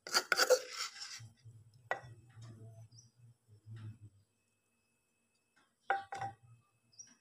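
A spoon scraping and knocking in a mortar as pounded mackerel chili dip is scooped out into a ceramic bowl. A loud scraping clatter comes first, then a single knock about two seconds in and two quick knocks near the end.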